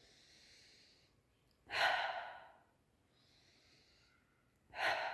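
A woman breathing out audibly through the mouth twice, about three seconds apart. Each out-breath fades away over about a second, with faint in-breaths before each. These are slow, deliberate exhalations of a relaxation breathing exercise, letting go of shoulder tension.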